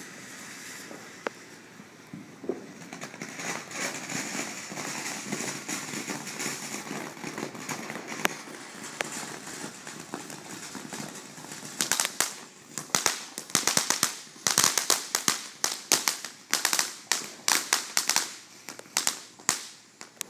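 A ground fountain firework hissing as it sprays sparks. From about twelve seconds in, a rapid, irregular run of sharp firework cracks and pops goes on for about eight seconds.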